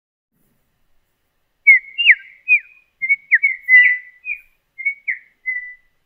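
A bird-chirp alert sound, one of the incongruent notification sounds designed for a retail store: a string of short, high chirps with quick downward pitch slides, starting almost two seconds in.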